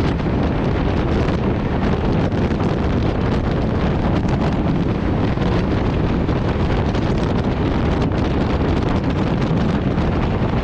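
Wind buffeting the microphone at the open door of a moving passenger train, over the steady running noise of the coach on the track. The noise holds at one level throughout.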